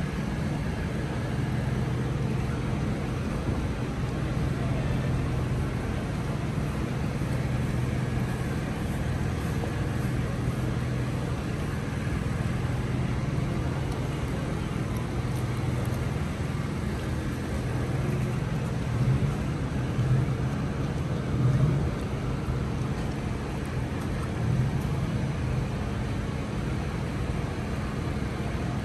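Steady low engine-like hum over a continuous outdoor noise background, swelling louder a few times about two-thirds of the way through.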